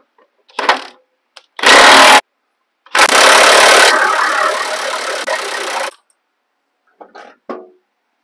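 DeWalt 20V cordless impact wrench hammering off the upper control arm mounting nuts on a truck's front suspension: a short burst, then a half-second burst, then a run of about three seconds that eases off partway through. A couple of light metal knocks follow near the end.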